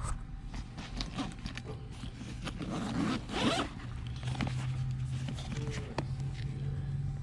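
Tool bag's zipper being pulled, one long zip about three seconds in, amid handling clicks and rustles of the bag; a steady low hum underneath.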